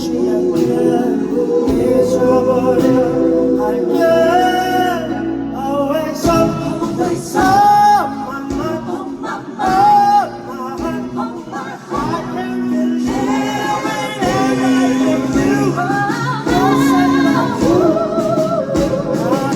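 Live band performance of a pop ballad with singing, including several long held notes with vibrato, the clearest about a third and halfway in.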